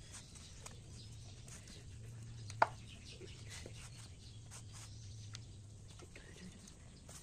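Faint, scattered light clicks and taps of hand work making roti, with one sharper knock about two and a half seconds in, over a low steady hum.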